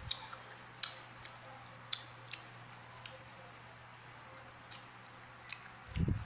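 Sharp, scattered wet clicks and smacks, about eight over several seconds, from a mouth sucking and biting a lemon wedge and fingers handling it. Near the end a quick cluster of low thumps comes in.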